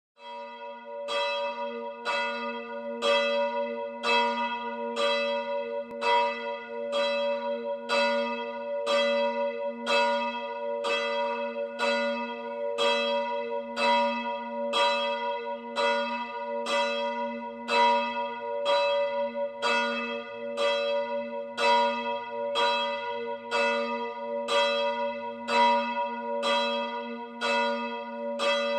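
A church bell tolling steadily, struck about once a second, each stroke still ringing when the next one lands.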